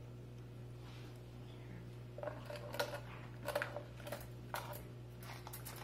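Light clicks and soft knocks, starting about two seconds in and coming every half second or so, as a wire pressure-cooker trivet and pieces of cooked butternut squash are set down on a plastic cutting board, over a steady low hum.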